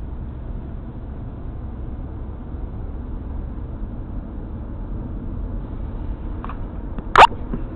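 Steady low rumble of a car driving, heard inside the cabin. About seven seconds in, a single sharp, loud knock.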